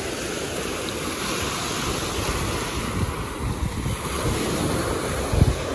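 Surf washing in on a sandy beach, with wind buffeting the microphone in low gusts. A single low thump comes about five and a half seconds in.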